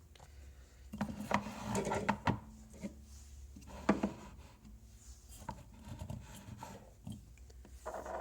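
Small clicks, taps and rubbing as the metal base and connector of an Aspire Atlantis vape tank are handled and pressed together by hand, with the sharpest click about four seconds in.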